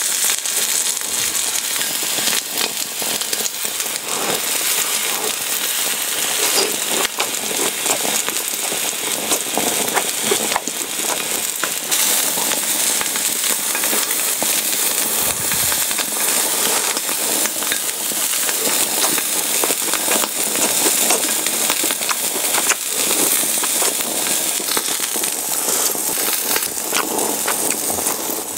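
Slices of beef tongue sizzling on a hot grill pan: a steady hiss with many small crackling pops.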